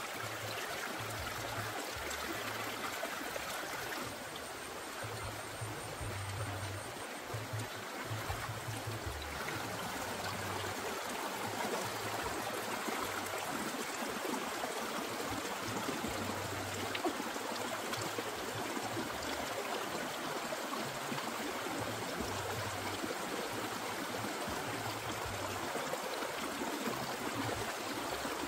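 Shallow rocky stream running steadily, water spilling over stones between boulders.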